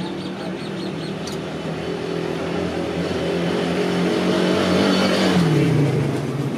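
A motor vehicle passing by, its engine note growing louder and then dropping in pitch as it goes past about five to six seconds in.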